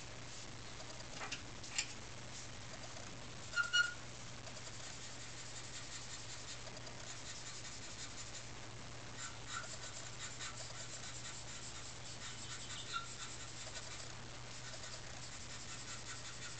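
Faint scratching of a charcoal pencil stroking across drawing paper, over a steady low hum, with a few short squeaky sounds, the loudest about four seconds in.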